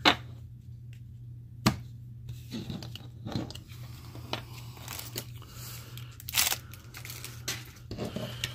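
Football trading cards handled by hand: a string of scattered snaps and flicks as card stock is riffled, squared up and slapped down, over a steady low hum.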